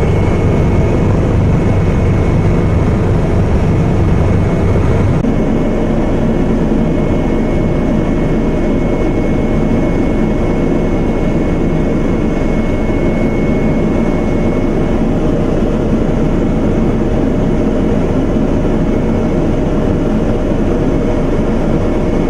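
Helicopter engine and rotor noise heard inside the cabin: a loud, steady drone with a faint high whine. Its tone shifts about five seconds in.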